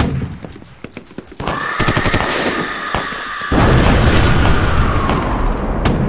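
A rapid series of sharp bangs, with a steady high tone sliding slightly down through the middle and a loud low rumble joining about halfway in.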